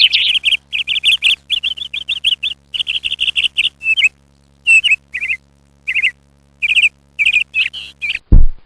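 A small bird chirping in quick runs of short, high notes, broken by brief pauses. Near the end, a deep thump.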